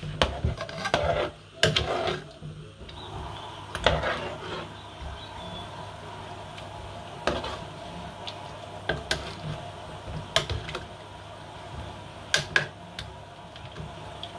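Metal spoon stirring meat in a large metal pot, scraping and knocking against the pot's sides and bottom in irregular clicks, busier in the first few seconds and then occasional, over a steady low hum.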